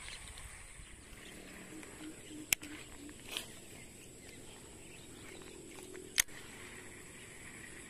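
Steady high drone of insects with faint low animal calls, broken by two sharp clicks, one about two and a half seconds in and one about six seconds in.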